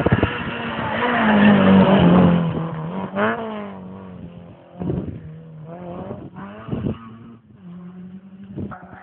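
Rally car engine at high revs, loud as it passes close, then fading as it pulls away down the road. Its revs rise and drop several times with gear changes.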